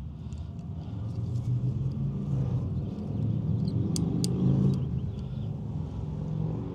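A motor vehicle driving past, its engine hum growing louder to a peak and then fading. Two sharp clicks come about four seconds in.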